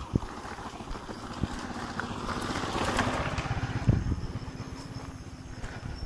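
A motor vehicle passing, its engine hum swelling to a peak around the middle and then fading, over footsteps on the trail.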